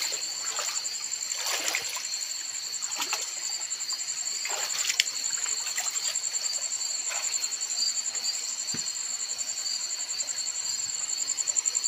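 Footsteps splashing and sloshing through shallow water, one step every second or two, over a steady high chirring of night insects.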